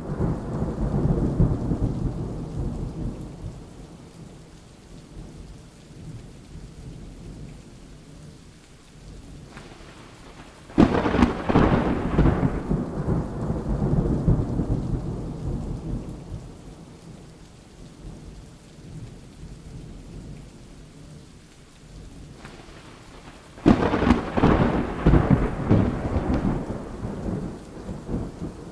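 Thunderstorm: steady rain falling, with rolls of thunder. One roll fades away at the start, then a sharp clap comes about eleven seconds in and another about twenty-four seconds in, each rumbling off over a few seconds.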